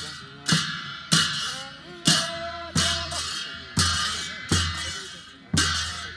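Drum and cymbals beaten in a slow, steady dance rhythm, about one stroke every 0.7 seconds, each beat a low thump with a long ringing clash.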